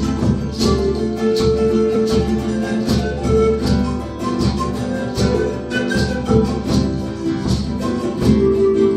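Andean folk instrumental played live: zampoña panpipes carry a held-note melody over strummed charango and nylon-string classical guitar keeping a steady rhythm.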